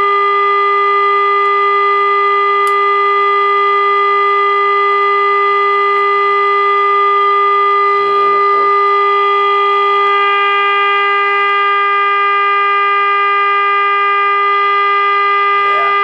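Steady test tone from the speaker of a 1947 Admiral AA5 table radio: the signal generator's modulated 455 kHz signal passing through the radio during IF alignment. About ten seconds in the tone turns slightly buzzier as the IF transformer is adjusted.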